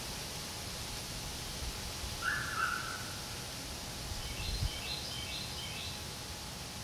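Wild birds calling over a steady outdoor hiss: one short call about two seconds in, then a quick run of short, high chirps a couple of seconds later. A low rumble, like wind on the microphone, sits underneath.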